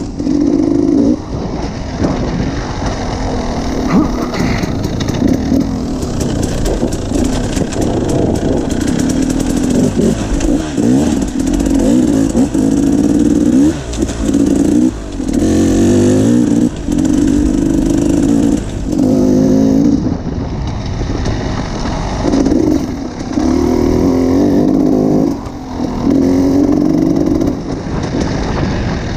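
Enduro dirt bike engine heard close up from on the bike, revving up and dropping off again and again as the throttle is opened and closed over rough trail.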